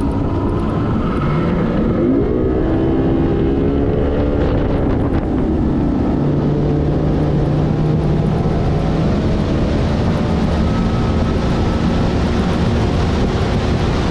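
Bass boat's outboard motor running at speed, with wind rushing over the microphone; the engine pitch climbs about two seconds in and then holds steady.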